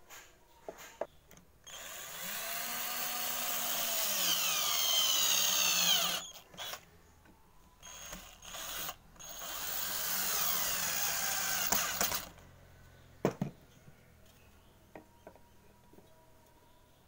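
Cordless drill boring into a wooden board: a long run of about four seconds, its pitch shifting under load, then a few short bursts and a second run of about three seconds. A single sharp knock follows about a second after the drill stops.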